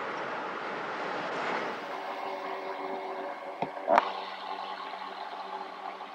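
Steady road and wind noise of a car at highway speed, giving way about two seconds in to a quieter steady hum with several tones. Two sharp clicks come a little past halfway, the second the loudest sound.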